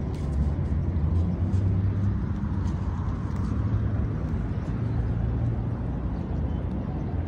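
Steady low outdoor rumble that wavers in level, with faint scattered light clicks over it.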